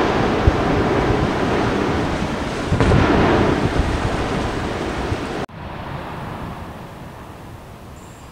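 Anak Krakatau erupting close by: a loud, continuous rushing rumble of an explosive ash-and-rock blast that swells about three seconds in. It cuts off abruptly about five and a half seconds in, leaving a quieter rushing noise.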